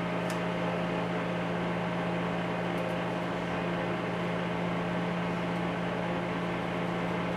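A steady machine hum, like a running fan, with a low drone and a fainter higher tone. A couple of faint light ticks come from a hand tool working on a small aluminium carburetor part.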